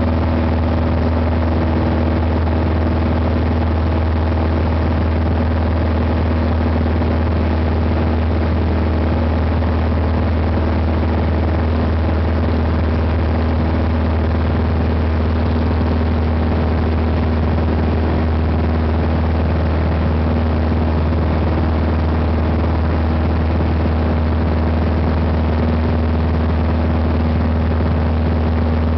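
Single-engine propeller plane's engine and propeller running steadily during the climb after takeoff, heard inside the cabin as an even drone with a strong low hum.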